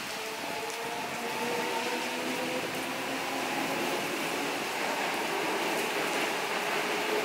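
Toei 5300-series subway train running alongside a station platform, its traction motors whining in several tones that slowly fall in pitch as it slows, over a steady hiss of heavy rain. The sound grows louder as the cars come past.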